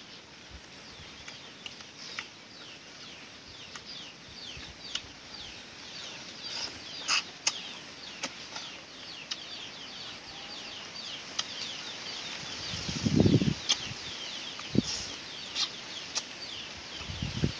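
Eating with chopsticks from a ceramic bowl: sharp clicks of the chopsticks against the bowl and low, muffled chewing noises, loudest about three-quarters through and at the end. Behind it, a rapid run of high chirps.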